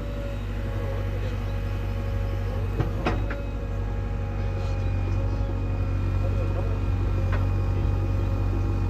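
JCB 3DX backhoe loader's diesel engine running steadily. Two sharp knocks come about three seconds in and another near the end.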